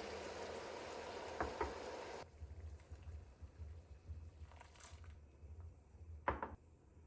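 A steady hiss of running or bubbling water that cuts off suddenly about two seconds in, with two light clicks just before it stops. After a quiet stretch, one sharp knock near the end.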